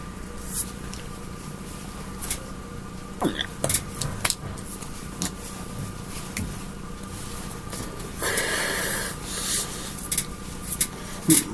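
Steady electrical hum with scattered light taps and clicks from hands and clothing as a person signs in sign language, and a breathy, rustling hiss lasting about a second past the middle.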